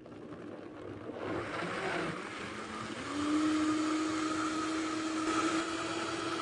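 Vitamix 5200 blender motor starting and building up speed, stepping up to a steady high-speed whine about three seconds in as it blends fruit and wheatgrass juice into a smoothie.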